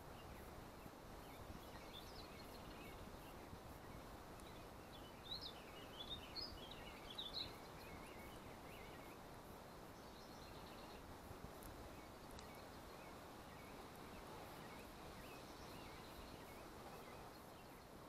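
Faint birdsong: brief high chirps, thickest about five to eight seconds in, over a steady low hiss.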